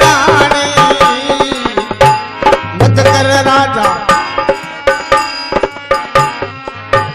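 Harmonium playing the melody of a folk bhajan, accompanied by hand-drum strokes in a steady rhythm, with no voice over it.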